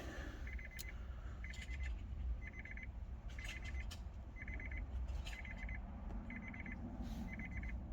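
Car warning chime: clusters of rapid high electronic beeps repeating about once a second, steady throughout.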